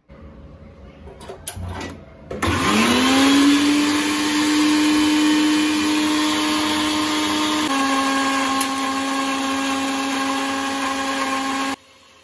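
A kitchen mixer grinder starts about two and a half seconds in, its motor whine rising quickly to a steady pitch as it grinds a green chutney of coriander, mint, curd and chillies. Its pitch shifts a little about halfway through, and it cuts off sharply near the end. A few light knocks come before it starts.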